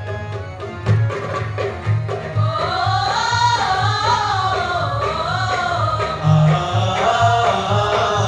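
A group sings a college anthem over a steady percussion beat. The voices swell in about two and a half seconds in.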